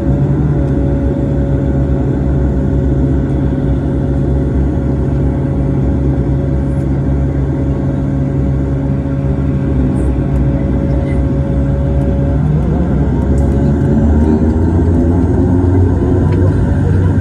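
Dash 8 turboprop engines and propellers running with a loud, steady drone during the takeoff climb. About twelve seconds in the sound changes: a steady mid-pitched tone cuts out and a deeper drone with wavering tones takes over.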